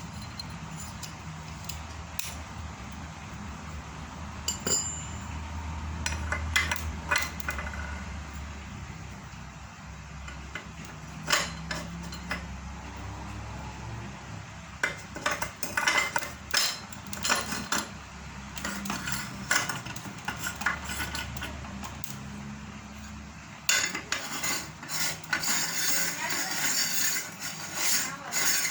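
Metal parts of a meat grinder adapted as a feed pellet machine clinking and knocking as they are handled and fitted together, with irregular clinks that turn into a fast, dense clatter near the end.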